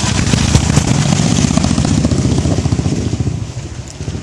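Royal Enfield single-cylinder motorcycle engine running as the bike passes close by with its rapid low exhaust beat. About three seconds in it starts to fade as the bike rides away.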